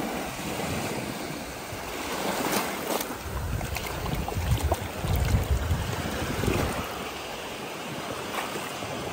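Ocean surf washing up the shore with wind buffeting the microphone; around the middle, water sloshes and splashes as a hand swishes a clump of sand in the shallow surf.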